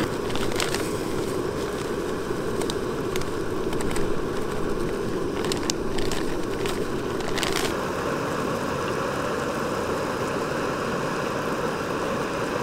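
Backpacking canister stove burner running with a steady rush. Scattered crinkles and small clicks from a paper bag being handled, mostly about halfway through.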